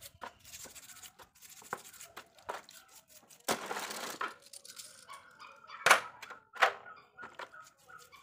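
Tapered roller bearing being scrubbed with a brush in a tray of washing liquid: irregular splashing, sloshing and scratchy brushing, with a few louder splashes.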